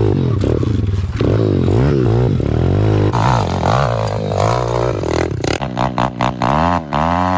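Small pit bike engines revving hard and backing off again and again, the pitch rising and falling as the bikes ride and climb rough dirt trails. The engine sound changes abruptly a few times as one riding clip gives way to another.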